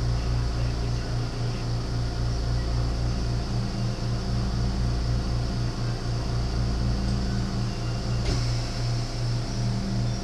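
A steady low hum with a faint high hiss, pulsing evenly, and a single click about eight seconds in.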